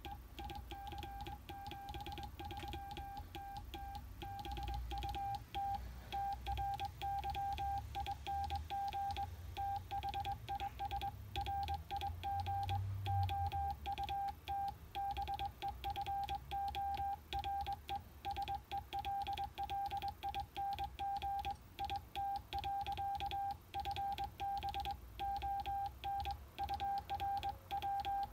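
Morse code (CW) tone of about 800 Hz from an Icom IC-725 HF transceiver on 40 metres, keyed on and off in a fast irregular pattern of dots and dashes.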